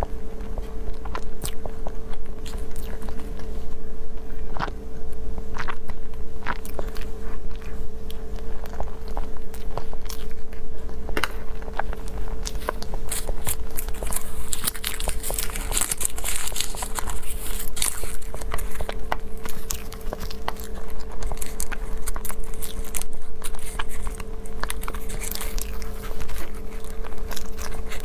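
Close-miked eating: wet chewing and sharp mouth clicks on a soft cream-filled mochi-type dessert. About halfway through there are a few seconds of crinkling, as a pink mochi is peeled from its paper liner. A steady low hum runs underneath.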